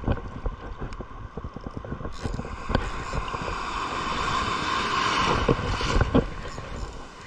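Surf: a wave breaking and washing in over the shallows, swelling over a few seconds and falling away about six seconds in, with wind buffeting the microphone.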